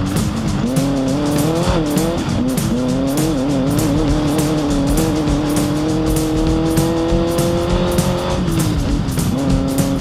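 Off-road race vehicle's engine running hard under load, its pitch wavering with the throttle, then climbing steadily for several seconds before dropping sharply near the end. Music with a steady beat plays along.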